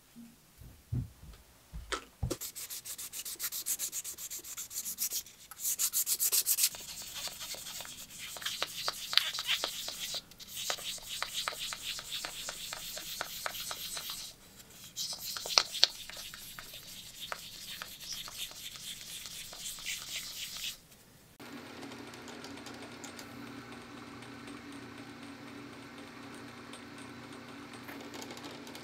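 A few handling knocks, then quick abrasive rubbing strokes, hand sanding or scrubbing of a part, with short pauses. About 21 seconds in the rubbing stops and a small electric motor starts running with a steady hum.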